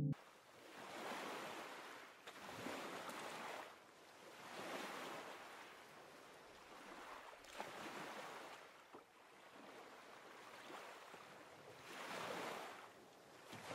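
Soft surf washing ashore: waves swelling and falling back every few seconds.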